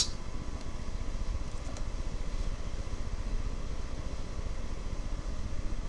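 Steady low background hum with a faint even hiss, like a room's ventilation or equipment noise.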